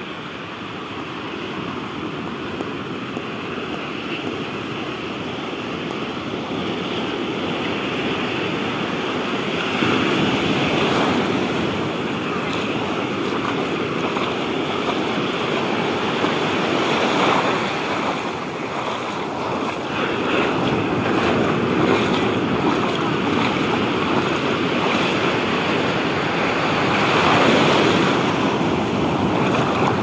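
Ocean surf breaking and washing through the shallows, foam hissing. It grows louder over the first ten seconds, then swells and ebbs as each wave rushes in, every five to seven seconds.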